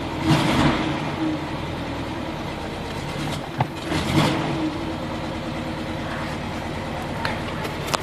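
ZAZ-968's air-cooled V4 engine running, revved up briefly twice: about half a second in and again about four seconds in. It is being listened to for a valve-gear (tappet/rocker) knock.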